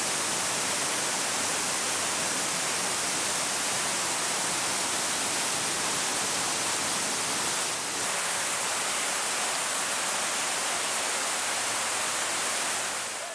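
Floodwater from a burst water main cascading down a stairwell: a steady, hissing rush of falling water that barely changes, with a slight dip about eight seconds in.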